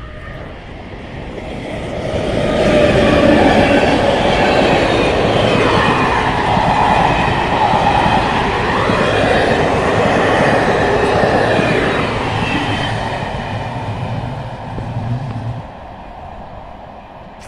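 Passenger train passing close by: locomotive and coaches running over the rails with wheel clatter. It builds over the first couple of seconds, stays loud for about ten seconds, then fades near the end as it moves away.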